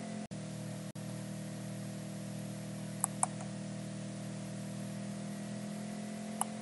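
A steady low electrical hum from the recording setup, with a short computer mouse click twice about three seconds in and once more near the end.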